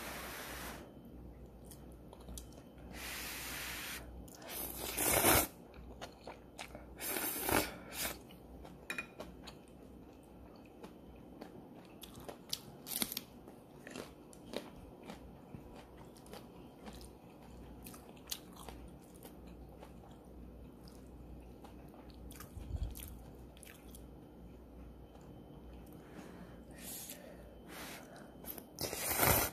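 Instant ramen noodles slurped from a bowl in several long slurps, the loudest about five seconds in and just before the end, with chewing and small clicks in between.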